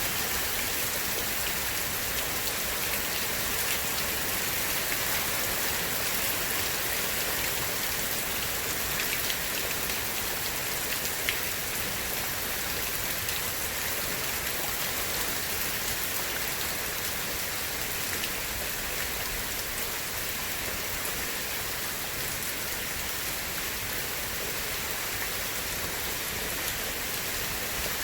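Steady rain falling on a surface, an even hiss with a few sharper drop ticks now and then.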